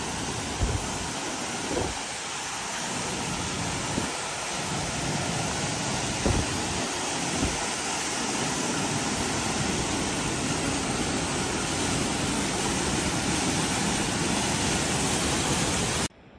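Mountain waterfall rushing close by, a steady loud roar of falling water that grows a little louder, with a few dull thumps in the first half. It cuts off suddenly near the end.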